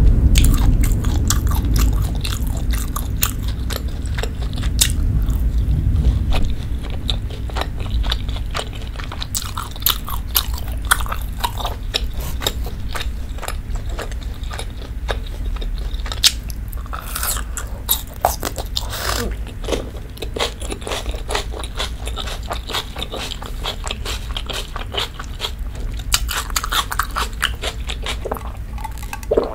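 Close-miked chewing and biting of beef steak and a cooked onion slice dipped in steak sauce, with many small wet clicks and crunches, over a steady low rumble.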